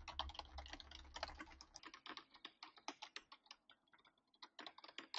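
Rapid typing on a computer keyboard, a fast run of faint key clicks that thins out briefly a little past halfway and then picks up again. It is heard through a USB condenser gaming microphone with its hardware noise-suppression button switched on, which leaves the clicks still audible but reduced.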